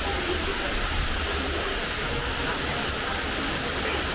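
Steady, even rushing noise with no distinct events, like falling water or wind.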